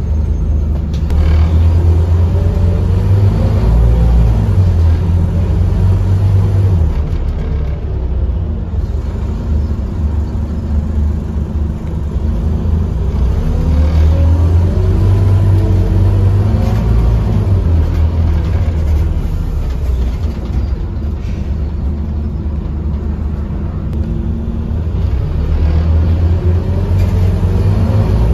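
Scania OmniCity double-decker bus's diesel engine heard from inside the passenger saloon, with a steady low rumble. Three times the bus speeds up, each time with a rising whine.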